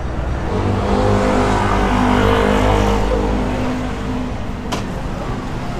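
A motor vehicle engine running at a steady pitch, swelling over the first couple of seconds and then fading. A single sharp click comes near the end.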